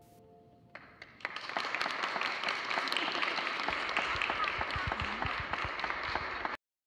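An audience clapping, starting about a second in just after the children's last held sung note dies away, a dense patter of many hands. It cuts off abruptly near the end.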